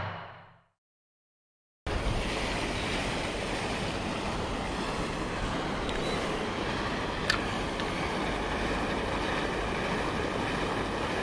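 A deep boom fades out at the start, followed by a second of dead silence. Then a steady rushing noise of wind and water on an action-camera microphone begins, with a single sharp click about seven seconds in.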